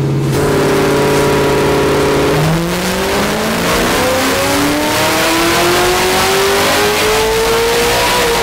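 Car engine under full throttle on a chassis dynamometer: held at steady revs for about two seconds, then pulling up through the rev range in one long, smooth rise of about six seconds before it drops off near the end.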